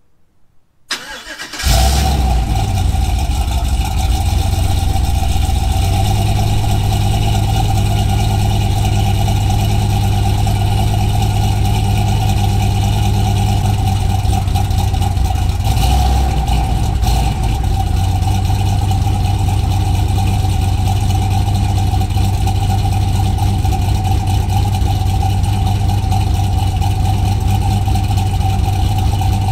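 Single-turbo Chevrolet Silverado V8 cold-starting. It cranks briefly, catches about two seconds in, and settles into a steady, loud idle with a steady whine above it.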